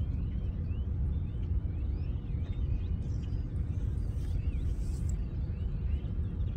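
Birds chirping in many short, high calls over a steady low rumble.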